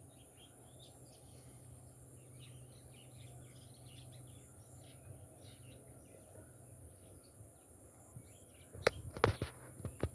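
Small birds chirping over a steady low hum of outdoor ambience, then several loud sharp knocks in quick succession near the end.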